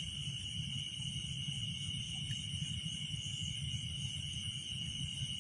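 A chorus of night crickets trilling steadily in one continuous high, unbroken tone, over a low steady rumble.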